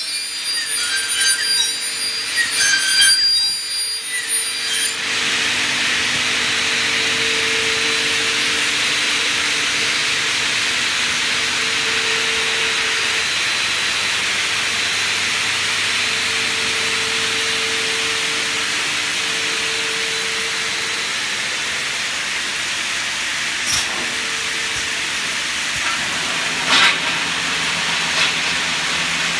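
Aluminium glazing-profile end-milling machine running: large disc cutters and their motors spin with a steady whirring hiss and a low hum that swells and fades. The first few seconds are rougher and uneven, with thin high ringing tones, and two sharp clanks come near the end.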